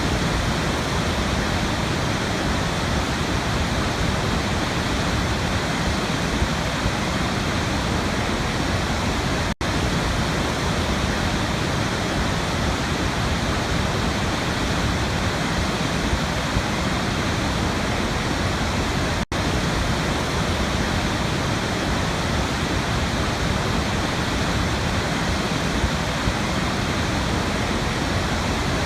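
Waterfall rushing: a steady, even roar of falling water, cut by two momentary dropouts about ten seconds apart.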